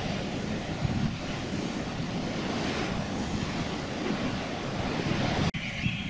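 Sea surf washing against a rocky shore, with wind buffeting the microphone. The sound cuts off abruptly near the end.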